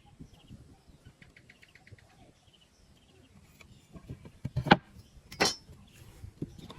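Hand woodworking on wood: a few sharp knocks, the loudest about two thirds of the way in, then a short rasping stroke. Faint bird chirps sound early on.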